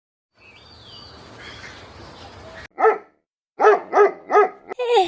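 A small dog barking in short, high yaps: about five in quick succession in the second half, after a stretch of faint background noise.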